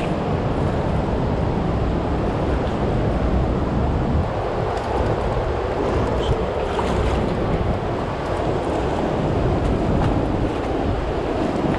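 Steady rushing of fast, high floodwater on a river, with wind buffeting the microphone.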